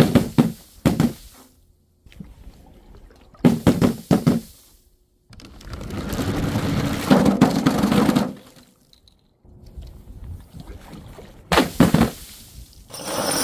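Paint-filled balloons dropped from a height hitting pavement in short clusters of wet splats and thuds. About five seconds in comes a rumbling clatter of a row of paint-filled plastic bottles sliding and rolling down a wooden ramp, lasting about three seconds. Another splatting impact comes near the end.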